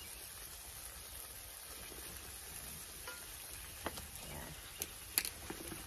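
Food sizzling faintly on a charcoal kettle grill, a steady high hiss, with a few sharp clicks of metal tongs about four to five seconds in as broccoli is laid on the grate.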